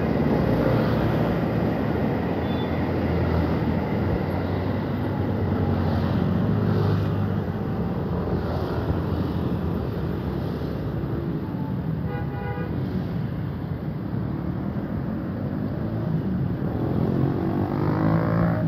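Steady road traffic on a flyover, with cars and motorcycles going by. An electric commuter train is passing at first. A brief pitched tone sounds about twelve seconds in, and near the end a motorcycle engine rises in pitch as it accelerates past.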